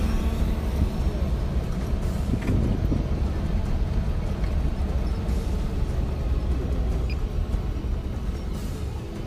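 A motor vehicle's engine running with a steady low rumble.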